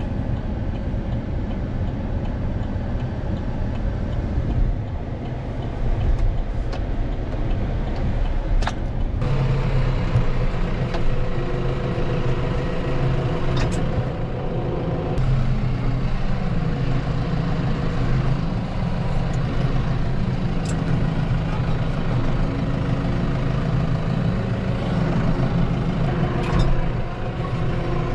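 Pickup truck idling, heard from inside its cab. About nine seconds in, this gives way to the steady hum of a New Holland T4 tractor's diesel engine running, heard from inside the tractor cab, with a few light clicks.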